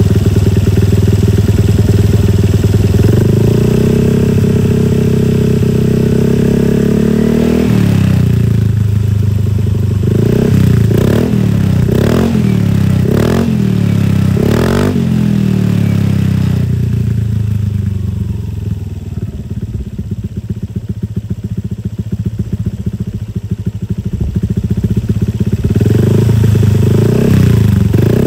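Honda Vario 150's single-cylinder scooter engine revved through a CLD Racing New C3 Oval aftermarket exhaust with a half baffle. It is held at a raised rev, then given about six quick throttle blips, settles back to idle, and rises again near the end.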